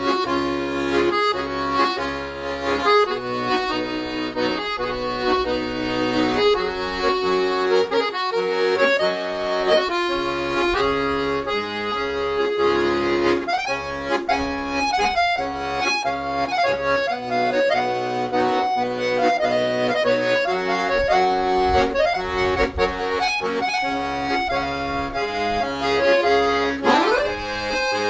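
Accordion (sanfona) playing a tune: a moving melody over held chords, with a quick rising run near the end.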